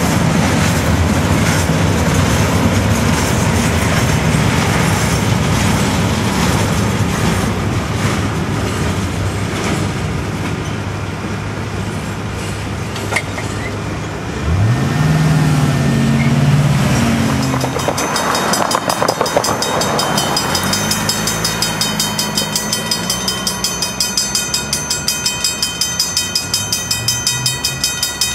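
Freight cars rolling over the crossing with clattering wheels until the last car passes about halfway through; an engine then revs up briefly. From about two-thirds of the way in, a mechanical crossing bell rings with rapid, regular strokes.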